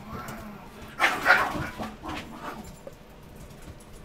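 A puppy about three weeks old giving a few short yips, the loudest about a second in.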